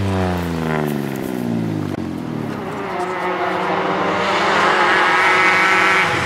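A rally car's engine note falls in pitch as it drives away. About two seconds in, a Peugeot 106 rally car is heard approaching, its engine running at steady high revs and growing louder.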